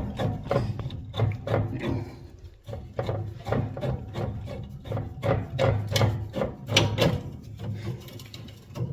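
Irregular knocking, rubbing and scraping of hard objects being handled, many short sharp strikes close together, over a low hum.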